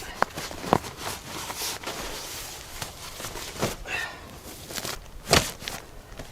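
Footsteps and rustling on forest ground, with a few sharp cracks. The loudest crack comes a little past five seconds in.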